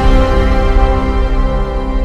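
Theme music with held, sustained chords, slowly getting quieter.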